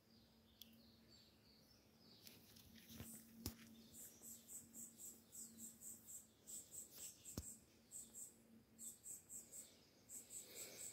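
Faint insect chirping: a high, pulsing call repeating about three times a second, starting a few seconds in. Two sharp clicks stand out, about three and a half and seven and a half seconds in.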